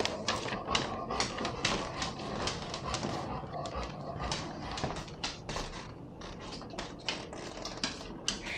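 Golden retriever panting with quick, noisy breaths, about four or five a second. This is the breathing problem the owner is trying to pin down, suspecting allergies or laryngeal paralysis.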